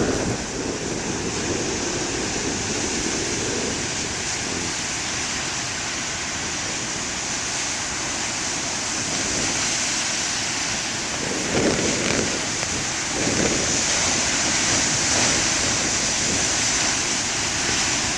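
Heavy surf breaking and washing on a beach as a steady roar, with strong wind buffeting the microphone in low rumbling gusts at the start and twice about twelve and thirteen seconds in.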